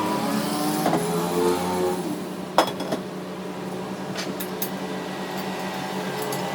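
A machine motor humming steadily, with one sharp click about two and a half seconds in.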